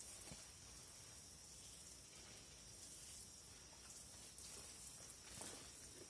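Near silence: faint outdoor ambience with a steady faint high-pitched hiss, and a few light rustles or clicks, one early and a couple near the end.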